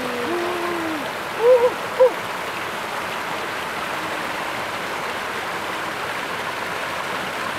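Stream water rushing steadily over rocks and small rapids, with a few short pitched calls in the first two seconds.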